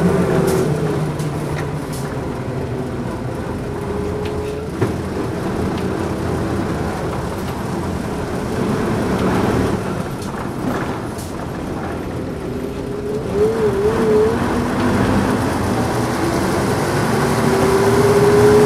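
Running sound of a 1989 Nissan Diesel P-U33L city bus's diesel engine while the bus is under way. The engine drones steadily, with a single knock about a quarter of the way in, a brief wavering whine about two-thirds through, and the engine note rising near the end.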